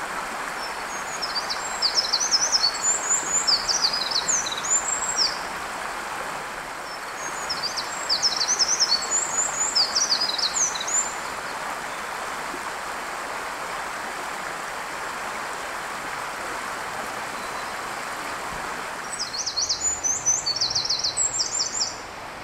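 Eurasian wren singing: three bouts of fast, high, tumbling trills, starting about a second and a half in, around eight seconds in, and near the end, over the steady rush of a stream that drops away shortly before the last bout.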